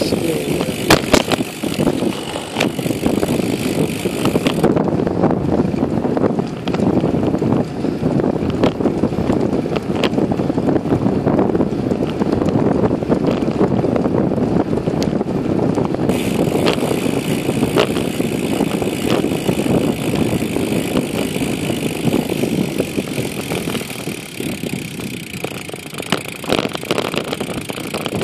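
Bicycle riding noise picked up by a handlebar-mounted camera: a steady rush of tyres on the road and wind on the microphone, with frequent small clicks and knocks from the bike.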